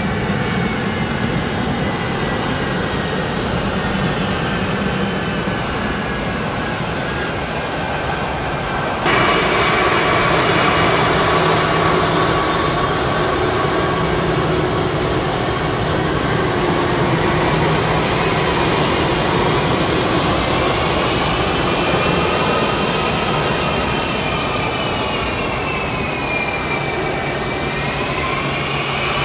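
Boeing C-17 Globemaster III's four turbofan engines running with a steady whine as the aircraft taxis. About nine seconds in the sound jumps louder and brighter, and near the end the whine dips in pitch and rises again.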